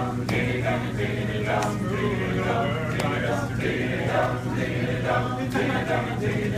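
Male a cappella group singing together, many voices without instruments.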